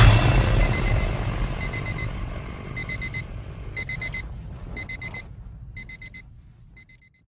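Alarm-clock beeping sound effect: groups of about four quick high beeps, one group a second, fading out toward the end. A low boom dies away at the start.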